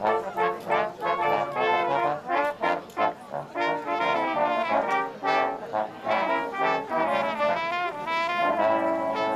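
Brass ensemble of trumpets, flugelhorns and a trombone playing a piece in several parts. The first few seconds are short detached notes, then longer held chords.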